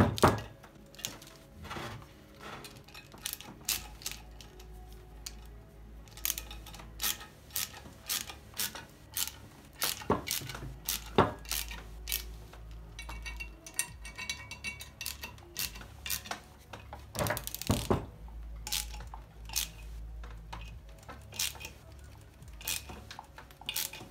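Ratcheting screwdriver clicking in short strokes as screws are backed out of the steel magnet housing of a LOMO Kinap 4A32 loudspeaker, with metal clicks and clinks about once or twice a second. The loudest is a sharp clack at the very start.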